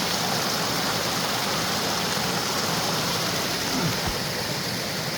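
Creek water rushing steadily, an even, unbroken wash of noise.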